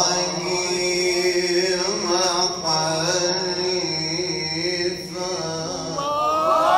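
A man chanting Quranic verse in tajweed style, holding long, ornamented melodic notes with small turns. Near the end, many listeners' voices call out at once over it.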